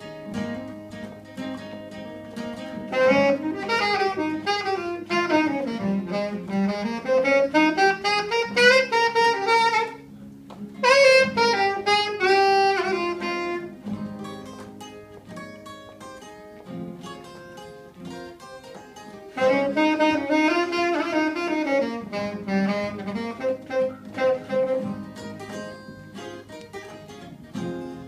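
Saxophone playing a melodic instrumental solo in three loud phrases over strummed acoustic guitars and electric guitar, with quieter guitar-only stretches between the phrases.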